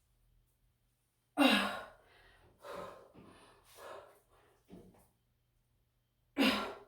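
A person breathing hard after exercise: two loud, voiced sighing exhalations, about a second in and near the end, with softer breaths between them.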